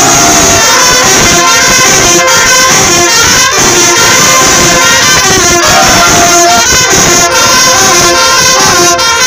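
Marching band's horn section playing at full volume at close range: trumpets, mellophones, sousaphones and saxophones together, very loud.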